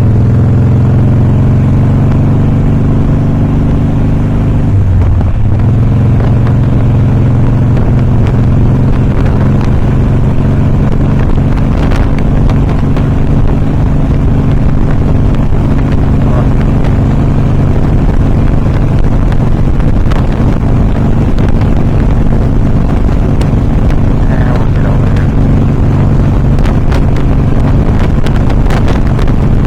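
Harley-Davidson Softail Custom's V-twin engine running steadily, with a brief dip in engine speed about five seconds in.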